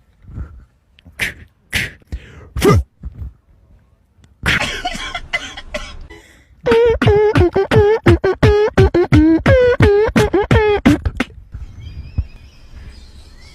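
A person making mouth noises: a few sharp pops, a breathy rush, then a quick run of short pitched yelps, about three a second.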